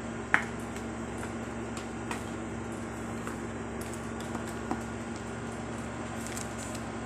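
Steady background hum with a low steady tone. A sharp click comes about a third of a second in, followed by a few faint clicks as a smartphone and its clear plastic case are handled.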